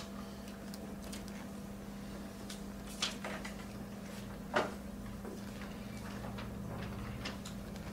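Room tone with a steady low hum, broken by two small sharp knocks about three and four and a half seconds in, and a few fainter clicks.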